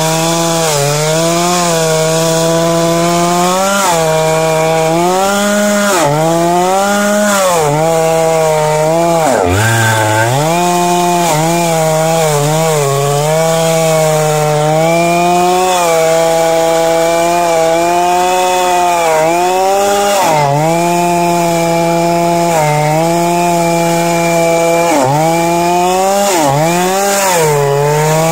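Two-stroke chainsaw running at high revs while ripping a log lengthwise in a chainsaw mill. Its engine pitch sags and recovers every second or two as the chain bites into the wood, dipping deepest about ten seconds in.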